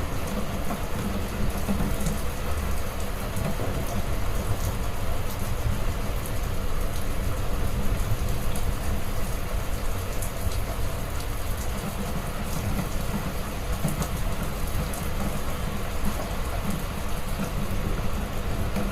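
Heavy rain falling steadily, with a constant low rumble underneath and scattered sharp drop ticks on top.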